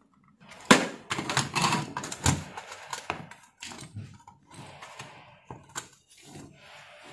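Hands handling the sheet-metal casing of a car stereo receiver: a sharp click about a second in, then a run of clicks, taps and scraping of metal and plastic as the casing's plastic catches are worked loose to free the top cover. The handling is busiest early on and lighter near the end.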